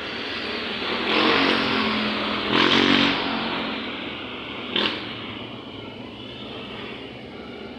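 A motor vehicle passing on a wet street: its engine and tyre noise swells to a peak about one to three seconds in, then fades away. A brief sharp sound comes about five seconds in.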